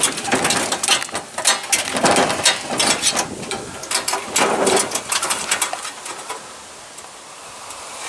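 Metal clicks, rattles and scrapes of barbed fencing wire and hand tools being worked, dense at first and dying down near the end.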